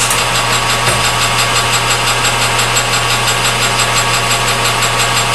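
Metal lathe running steadily: a steady machine hum with a fast, even ticking over it.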